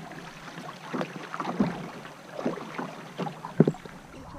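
Canoe paddling: wooden paddles dipping and pulling through river water, with a handful of irregular sharp knocks as the paddles strike the canoe's hull, the loudest near the end.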